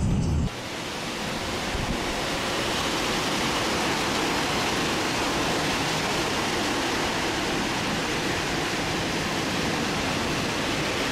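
Thunderstorm wind and rain: a steady rushing hiss that starts abruptly about half a second in and holds even throughout.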